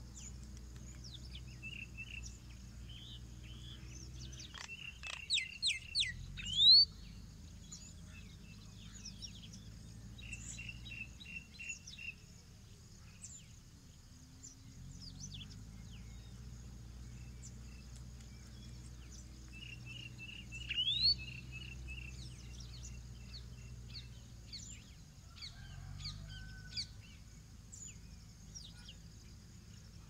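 Outdoor ambience of small birds chirping and calling over a steady high insect drone and a low hum. The loudest sounds are a few sharp rising calls about five to seven seconds in and again about twenty-one seconds in.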